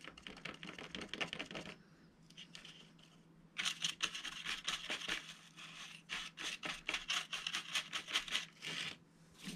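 A small paintbrush dry-brushing a textured XPS foam column: rapid scratchy strokes of the bristles over the foam, a short run at the start and a longer one from about three and a half seconds in.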